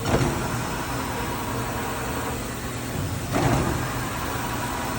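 Makino A66 CNC horizontal machining center running with a steady mechanical hum, broken twice by a brief whirring surge that sweeps in pitch, right at the start and again about three and a half seconds in, typical of a servo axis or spindle speeding up and slowing down.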